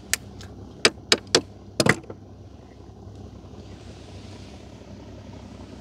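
Several sharp knocks aboard a small fishing boat in the first two seconds, over a steady low hum, then only the hum.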